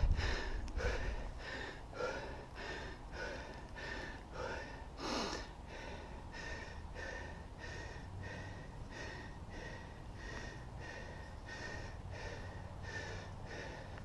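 A hiker breathing hard and evenly while climbing, about two breaths a second, each with a slight whistle. One louder gasp comes about five seconds in.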